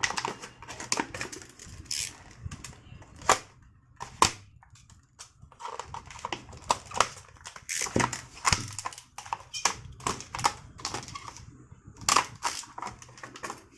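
Unpacking a plastic faucet and sink installer wrench from its packaging: irregular clicks, knocks and rustles of packaging and hard plastic being handled, with a few sharper knocks.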